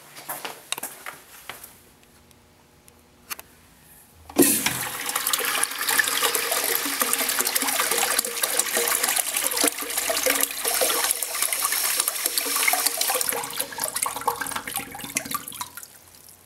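American Standard Washbrook urinal flushing. It starts suddenly with a thump about four seconds in, then loud rushing water runs for about ten seconds and tapers off near the end. A few faint clicks come before the flush.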